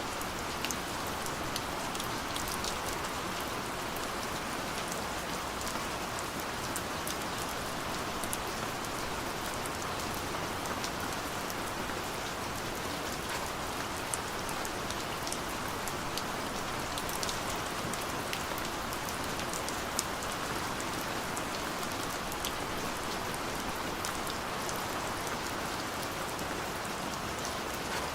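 Steady light rain falling on a surface, a constant patter with many small individual drops ticking through it.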